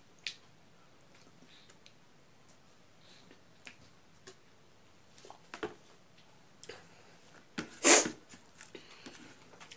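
Close-miked mukbang eating and drinking sounds: soft scattered mouth and finger clicks while drinking from a plastic water bottle and mixing rice by hand, with one short, louder noise about eight seconds in.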